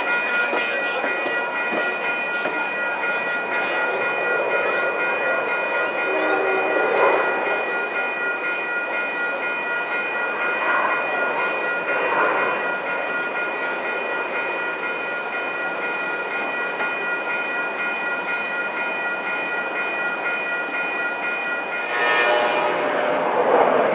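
Coaster commuter train's bi-level cars rolling past on the station track and away, with steady high-pitched ringing tones held throughout; the sound changes abruptly about 22 seconds in.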